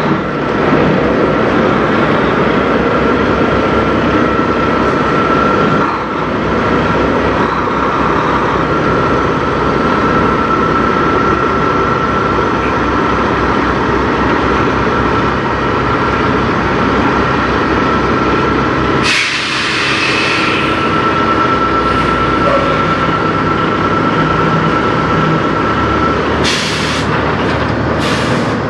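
Peterbilt semi tractor's diesel engine idling, with a thin steady whine over it. About two-thirds of the way in comes a sharp hiss of released air lasting over a second, and two short hisses follow near the end.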